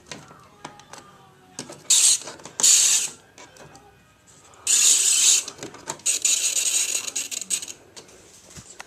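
Clicks and mechanical handling noises, with several loud bursts of rustling, hissing noise lasting up to a second or so each.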